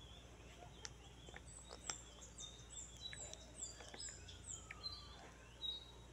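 A bird chirping faintly: a quick run of short, high, falling chirps that starts about two and a half seconds in and lasts about three seconds, over a few faint scattered clicks.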